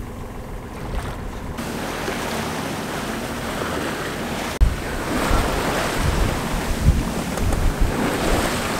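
Water rushing and splashing past a sailboat's hull as it sails at speed. About halfway through, wind buffets the microphone in low, uneven gusts.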